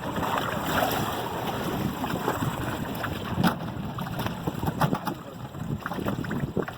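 Wind buffeting the microphone over sea water washing around a small fishing boat, with scattered knocks and clatters from on board.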